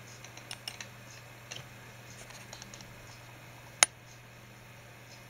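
Low steady hum with a few faint small clicks, then one sharp click a little under four seconds in: a computer mouse button clicked to step to the next photo in an image viewer.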